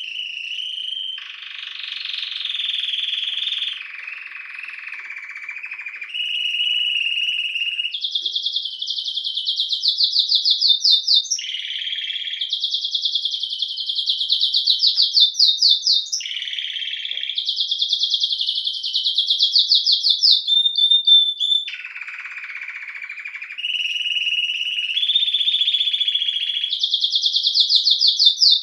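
Domestic canary singing a long, unbroken song. The phrases change every second or two, alternating between high, fast trills of rapidly repeated notes and lower, rougher rolls.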